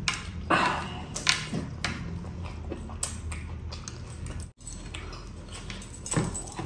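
Close-miked eating by hand: fingers mixing and scooping biryani rice on a plate, and chewing with wet mouth clicks and smacks. These come as sharp, irregular clicks over a low steady hum, and the sound cuts out for an instant about four and a half seconds in.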